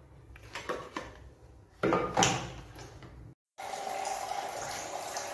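Small knocks and clatters of toiletries being lifted off a glass bathroom shelf, the loudest about two seconds in. After a brief cut to silence, a steady background noise with a faint hum.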